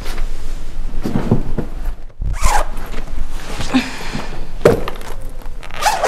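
A boot zipper being pulled and clothing handled, heard as a series of short rasping zips and rustles.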